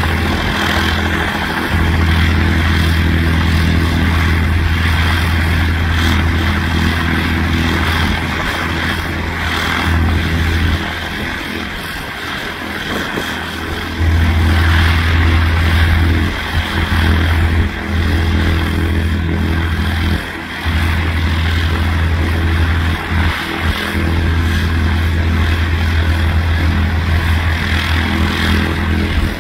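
Cessna 152's four-cylinder Lycoming engine and propeller running at low taxi power. The sound eases off for a few seconds about a third of the way in, then comes back up about halfway, with a few brief dips later on.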